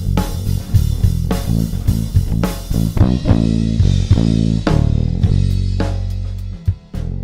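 Live band playing an instrumental passage on bass guitar, guitar and drum kit. The steady drum hits thin out about three seconds in, leaving a run of bass and guitar notes that settles onto a held low note near the end.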